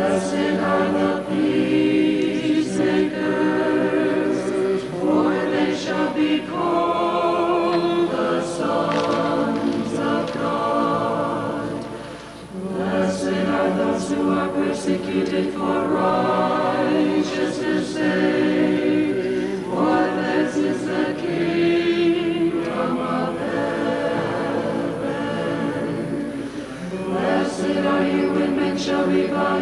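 Unaccompanied choir singing in long held phrases, with short breaks about 12 seconds in and again near 27 seconds.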